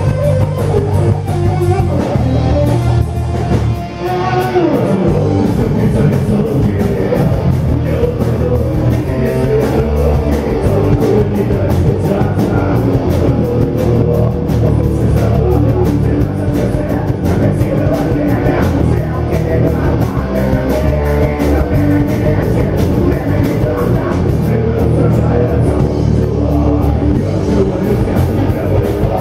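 A rock band playing live with electric guitar, bass guitar and drums. The music dips briefly about four seconds in, then the full band with drums carries on.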